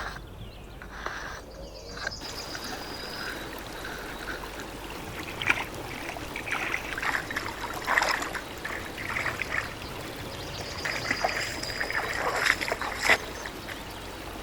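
Water trickling and splashing, with a run of irregular sharp splashes through the middle.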